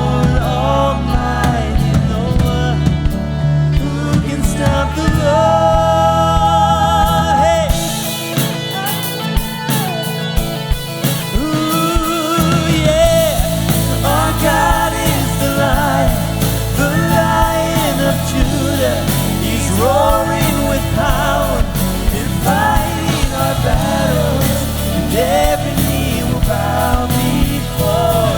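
Worship song performed by a band with a lead singer. The bass drops out for about four seconds around eight seconds in, then the full band comes back in.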